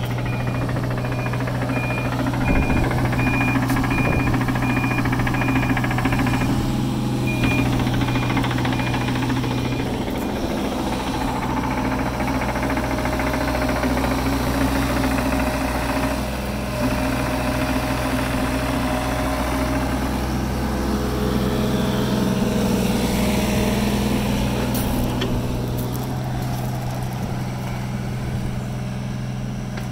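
Case CX36B mini excavator's diesel engine running steadily. A regular high beep repeats through roughly the first ten seconds.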